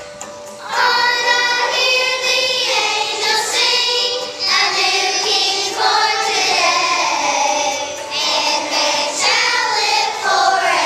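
A children's choir singing together, the voices coming in strongly about a second in after a brief lull.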